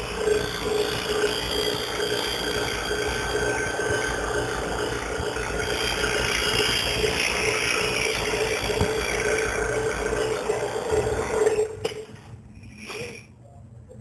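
Robinair high-vacuum pump, an electric rotary-vane refrigeration pump, running steadily while holding a charging hose in deep vacuum. It is switched off about twelve seconds in and the sound stops suddenly.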